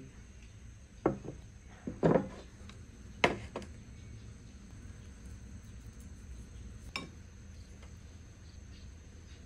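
Brass pot and dishes being handled on a wooden table: a few knocks and clinks in the first few seconds, the loudest about two seconds in, then a single sharp click about seven seconds in.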